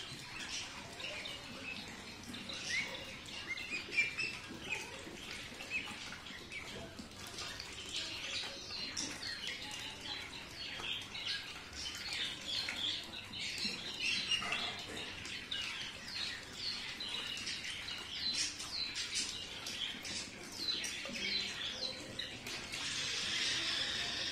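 A flock of young Khaki Campbell ducklings peeping: a constant overlapping chatter of short, high calls that grows busier about a third of the way in.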